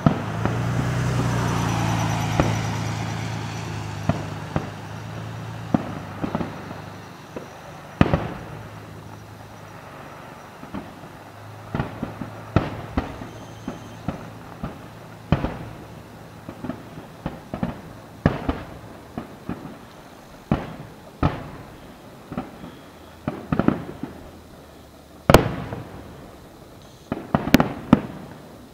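Aerial fireworks shells bursting: a long, irregular series of sharp bangs, with a rushing noise in the first few seconds. The loudest bang comes about 25 seconds in, followed by a quick cluster of bangs near the end.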